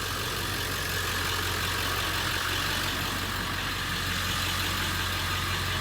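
Ford 7.3 L Powerstroke turbo-diesel V8 idling steadily.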